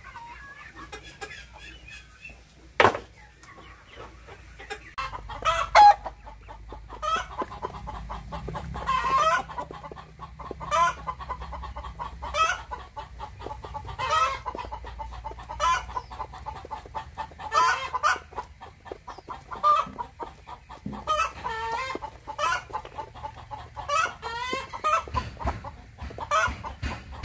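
A flock of chickens clucking over and over while they feed, with many short ticks of beaks pecking pellets from a plastic feeder tray. A single sharp knock about three seconds in.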